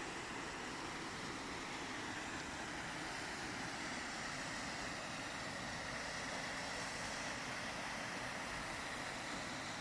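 Waterfall: falling water rushing with a steady, even noise that holds without a break.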